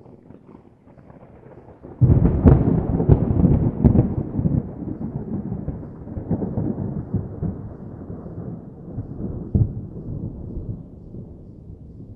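Thunder: a faint crackling rumble, then about two seconds in a sudden loud clap with several sharp cracks, rolling on as a deep rumble that slowly fades.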